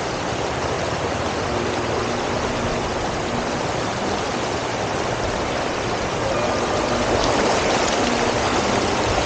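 River water rushing steadily over stones, a continuous hiss and roar that grows a little louder about seven seconds in.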